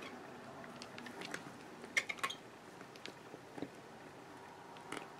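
Small clicks and soft rustling from hands handling and posing a fashion doll on its stand, with a quick cluster of clicks about two seconds in and another near the end.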